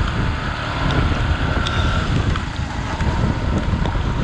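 Wind buffeting the microphone of a hand-mounted GoPro on a moving motorbike in the rain: a steady heavy rumble with scattered small ticks.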